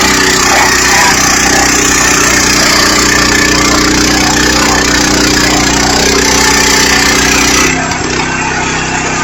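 Patriot portable bandsaw mill sawing a board from a beech log: the engine runs steadily under load under the hiss of the band blade in the wood. A little before the end the cut finishes and the sound drops back to the engine running on its own.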